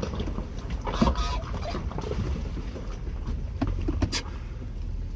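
Jeep Wrangler on a rock trail: a steady low engine and tyre rumble, with a few sharp knocks and clicks about a second in and again near the end.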